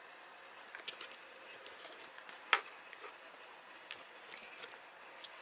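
Light handling sounds: a few soft clicks and taps, one sharper click about two and a half seconds in, over a steady faint hiss.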